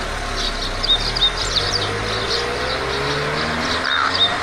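Birds chirping repeatedly over the low, steady rumble of a passing car, whose engine note slides slowly in pitch about halfway through.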